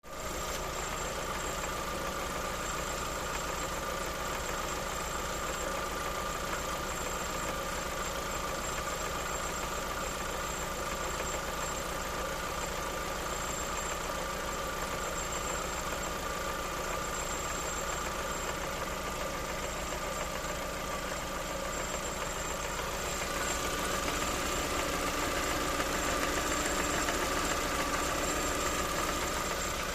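Lada Vesta engine idling with a knocking that the owner takes for camshaft knock. It grows slightly louder about two-thirds of the way through.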